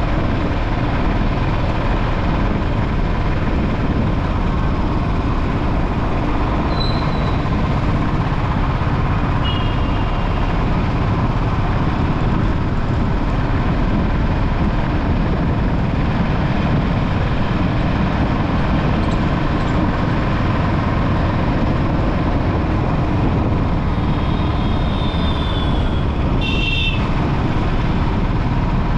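Steady wind and road noise from a motorbike riding through city traffic. A few short high-pitched beeps come through, the clearest cluster near the end.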